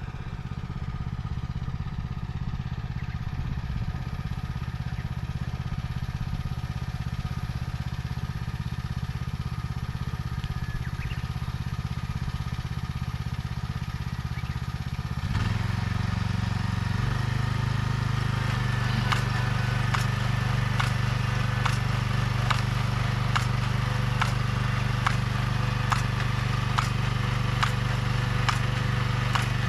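Engine of a vegetable transplanter running steadily while planting corn seedlings. About halfway through its note shifts and grows louder, and a regular clicking of the planting mechanism sets in.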